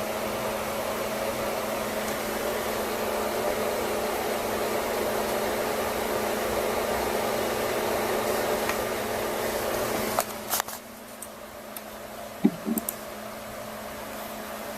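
Steady hiss with a low hum through it. About ten seconds in, after a few clicks, it drops away suddenly to a fainter hiss, broken by a couple of short blips.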